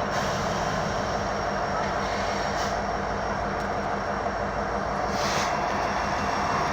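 Diesel freight locomotive engines running steadily with a low hum, with a short hiss about five seconds in.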